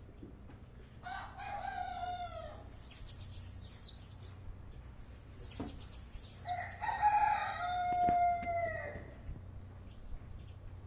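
A rooster crowing twice, each crow a long call that drops in pitch at the end. Between the crows, a small bird gives bursts of high, quick chirps.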